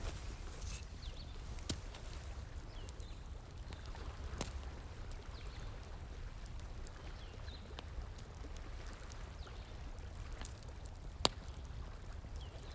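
Wood fire crackling with occasional sharp pops, one standing out clearly near the end, over a steady rush of flowing stream water.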